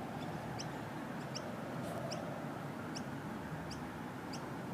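A short, high, rising chirp repeated evenly about every three-quarters of a second over a steady background hiss.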